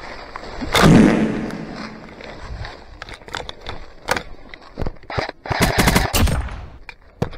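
Airsoft electric rifle (AEG) gunfire in rapid bursts: a loud burst about a second in, scattered shots after it, and a tight burst near the end.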